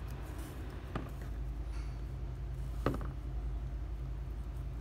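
Two sharp plastic clicks, about a second in and again near three seconds, as a pry tool works at the plastic midframe of a Samsung Galaxy A12, over a steady low hum.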